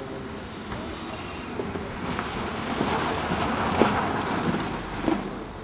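Volkswagen Tiguan driven under power through snow, tyres spinning and churning snow. It grows louder to a peak a little past the middle as it passes close by, then fades away. There are a couple of sharp knocks, one at the peak and one near the end.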